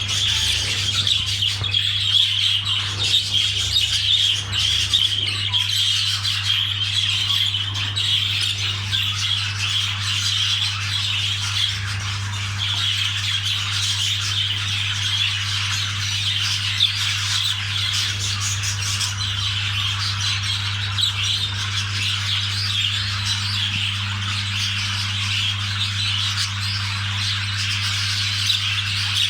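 Budgerigars chattering and squawking without a break, a dense stream of chirps over a steady low hum.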